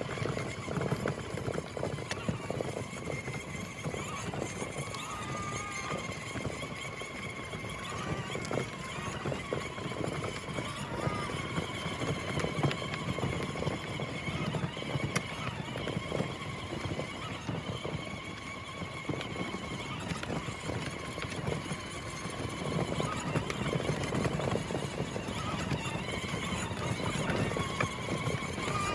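A 24V ride-on toy truck driving over rough ground, with a steady stream of small clicks as its plastic wheels rattle and crunch over the surface.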